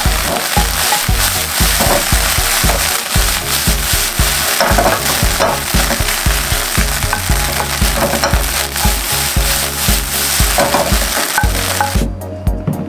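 Ground beef sizzling as it browns in a frying pan, stirred and turned with a wooden spatula. The sizzling cuts off abruptly about a second before the end.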